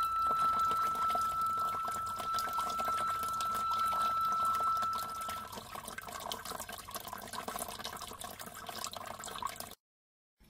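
A last held note of flute music ends about halfway through. Under it and after it, water trickles and drips, fading out, and everything cuts to silence just before the end.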